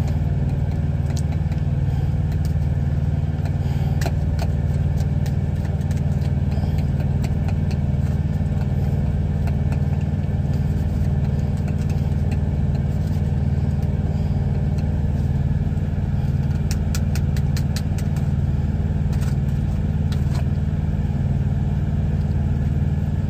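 Steady low drone of a truck's idling engine, with light clinking and scraping of a metal wire whisk mashing potatoes in a foil pan. A run of quick clicks comes late on.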